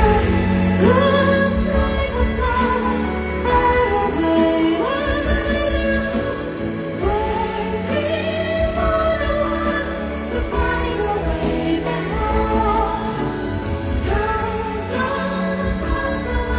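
A male singer's high voice sings a slow ballad live, holding long notes with vibrato over instrumental accompaniment.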